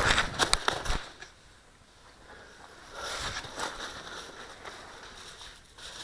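Footsteps and gear rustling close to a helmet-mounted microphone, with wind on the mic, stopping about a second in; after that only faint rustling and crackling.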